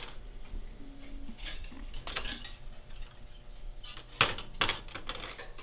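Stiff steel wire being handled and worked by hand: scattered sharp metallic clicks and clinks, with a cluster of louder ones near the end.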